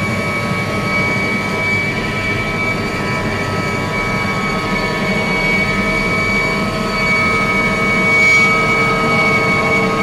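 Steady running noise of a moving vehicle, with several steady whining tones over it and a slight swell about eight seconds in.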